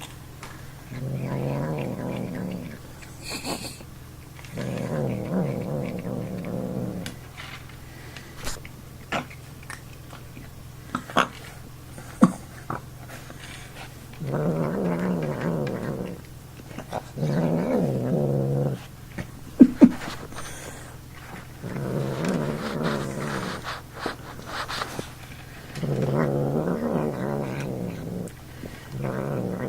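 Domestic cat growling when poked while eating, about seven long drawn-out growls with short pauses between them. Short sharp clicks come in the gaps.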